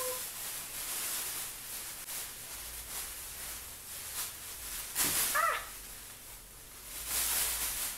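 Black plastic bin bag crinkling and rustling as an artificial Christmas tree's branches are pulled out of it, louder in surges about five and seven seconds in. A brief sliding whine is heard about five seconds in.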